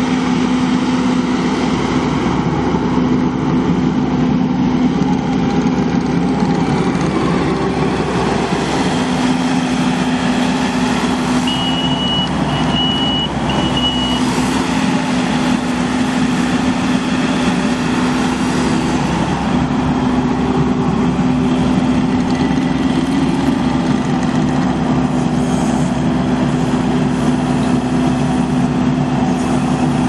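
Kubota 3.3 L four-cylinder turbo diesel of a compact track loader running steadily at a constant speed. About twelve seconds in come three short high beeps.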